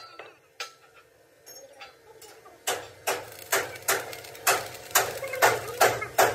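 Hammer blows on steel, about two a second and evenly paced, starting about two and a half seconds in after a quieter stretch with a few light taps.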